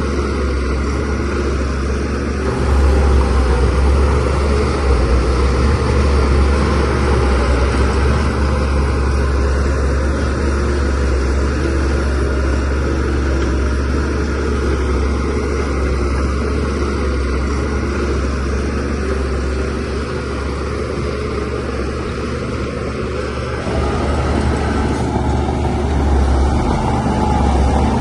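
DH17-C3 crawler bulldozer's diesel engine running under load with a deep rumble. It gets louder about two seconds in, eases off past the middle, then picks up again near the end.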